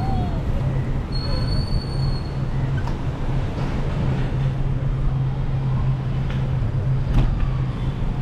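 Vehicle on the move along a city road: a steady low motor hum over road and wind noise. A brief high thin tone sounds about a second in, and a sharp click comes near the end.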